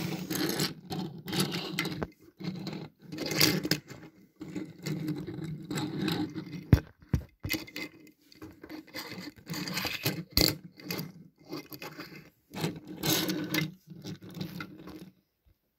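Close handling noise as die-cast metal toy cars are moved about by hand on a wooden tabletop: irregular scrapes, rubs and small clicks, with one sharp click about seven seconds in.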